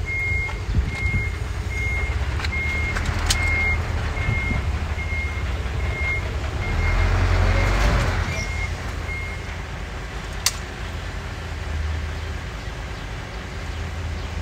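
A truck's reversing alarm beeps at an even pace, a little over one beep a second, over the low drone of its engine. The beeping stops about nine seconds in. A louder swell of rushing noise comes about seven to eight seconds in.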